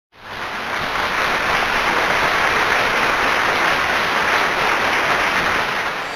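Audience applauding, a dense steady clatter of many hands that fades in at the start.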